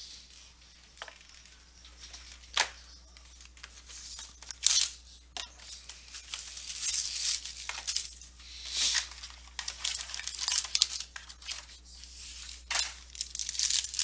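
Trading card packaging handled and torn open by hand: a few light taps, then crinkling and tearing of plastic wrapper and cardboard that grows busier toward the end.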